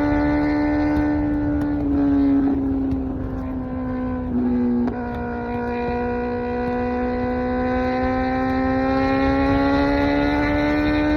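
Kawasaki Z900's 948cc inline-four running through an SC Project exhaust at cruising revs. The pitch sags slightly through the middle, with two short surges in level, then climbs steadily near the end as the bike accelerates. Wind rumble sits underneath.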